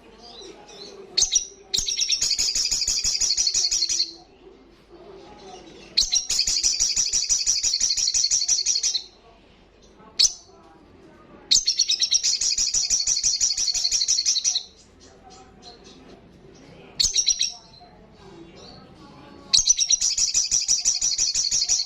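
Olive-backed sunbird singing a fast, loud trilling song: four bursts of rapid chattering notes, each two to three seconds long, with short sharp chips between them.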